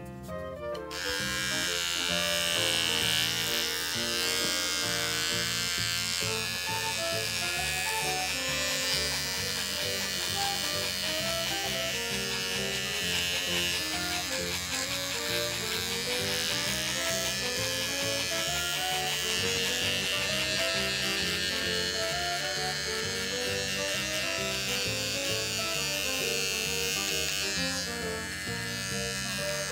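Small battery-powered pet grooming tool running against a dog's paw: a steady high motor whine that starts about a second in and eases off near the end. Background music with a melody plays throughout.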